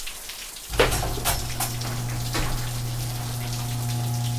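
Garage door opener motor switches on with a click about a second in and runs with a steady hum, with a few sharp clacks as the door travels down. The door now closes because the safety sensors have been realigned.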